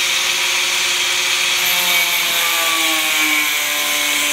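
Small angle grinder with a thin cut-off disc cutting a slot into a metal dessert spoon: a steady, loud grinding hiss and motor whine, the whine's pitch sagging slightly in the second half.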